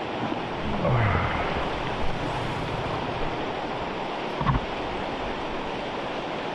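A steady rushing noise, with a short falling low tone about a second in and a brief knock about four and a half seconds in.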